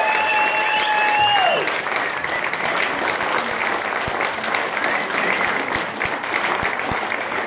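Concert audience applauding after a song. Over the first second and a half, high held tones ring above the clapping, and the lowest one ends in a falling glide.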